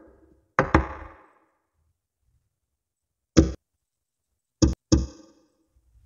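Small magnetic balls clicking sharply as they snap onto a stack of magnet balls, five clicks in all: a pair about half a second in with a brief rattle after, one near the middle, and two in quick succession about three-quarters of the way through.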